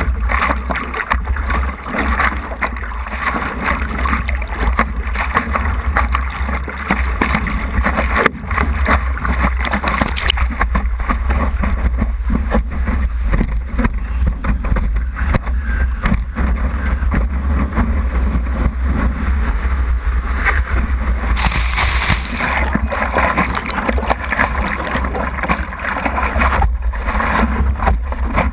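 Wind rumbling on the microphone of a camera mounted on a stand-up paddleboard, with water rushing and splashing along the board as it rides the waves; a steady, loud noise.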